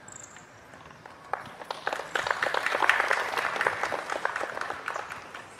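Audience applause: clapping that starts about a second in, builds to its peak near the middle, and dies away near the end.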